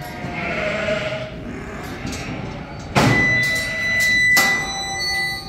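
Sheep and lambs bleating. About three seconds in comes a sudden loud sound, followed by a steady high tone that holds for about two seconds.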